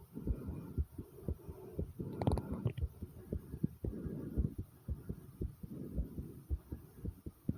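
A person's heartbeat, beating fast and pounding as an even run of low thumps. A little over two seconds in, a short stomach gurgle sounds over it.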